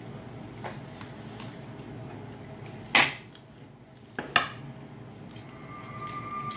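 Sharp cracks and clicks of boiled lobster shells being broken apart by hand at the table, the loudest about three seconds in and two quick ones just after four seconds. A faint steady high tone comes in near the end.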